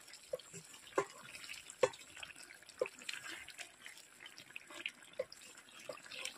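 A spatula stirring a thick meat and potato curry in a metal pot: faint, irregular soft clicks and scrapes.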